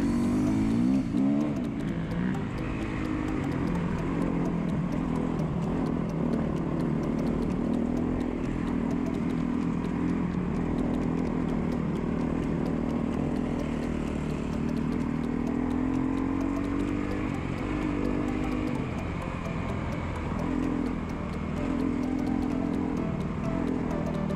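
2008 KTM 250 EXC-F's single-cylinder four-stroke engine running under way on a dirt trail, its revs rising and falling with the throttle and gear changes.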